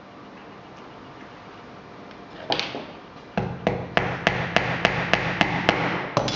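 Small hammer tapping brass pins through a brass hasp into a wooden box: about ten quick, light taps, roughly three a second, starting a little past the middle.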